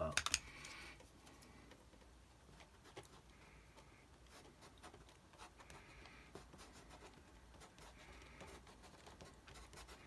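Folded tissue rubbed and dabbed on wet watercolour paper, a faint scratchy rustle. It is loudest in the first second, then comes back as a few short, fainter strokes.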